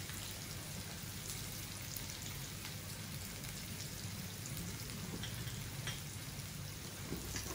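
Raw banana pieces and tadka (tempering spices in oil) frying in a pan, a steady sizzle with a few faint ticks.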